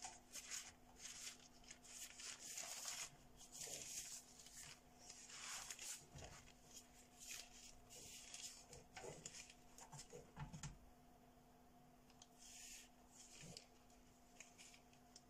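Soft, intermittent rustling and rubbing of baking paper as a pastry sheet is handled at the oven, over a faint steady hum.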